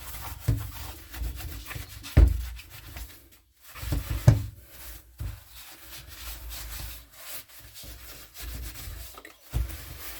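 Rubbing and scrubbing as the Makita EM2600 petrol strimmer is wiped clean by hand, in irregular strokes, with a couple of sharp knocks of handling about two and four seconds in.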